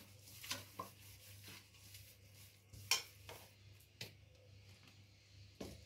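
A hand mixing a moist spice paste in an aluminium bowl: soft scraping and squishing of fingers against the metal, with a few sharp clicks against the bowl, the loudest about three seconds in.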